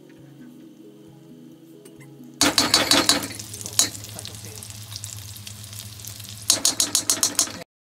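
Faint background music, then from about two and a half seconds in, hot oil sizzling loudly in a wok as a metal spoon stirs paste into it, full of crackles. The sizzle eases, flares again near the end and cuts off suddenly.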